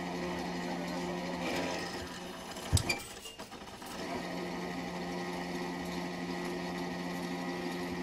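Winch motor of a small drop-hammer pile driver running steadily as it hoists the hammer, going quiet about a second and a half in. About a second later the hammer falls with one sharp, heavy thud, and the winch starts running again about four seconds in.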